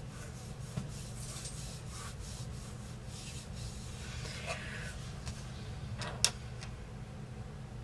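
Faint rubbing and scratching of a makeup brush being worked in eyeshadow and handled, over a steady low hum, with one sharp click about six seconds in.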